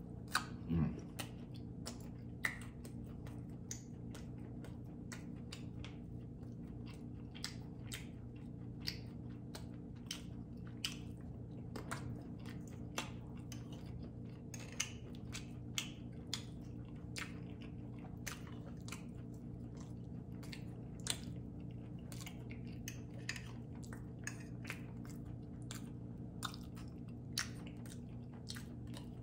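A person chewing steak close to the microphone, with many small irregular wet mouth clicks and smacks over a steady low hum.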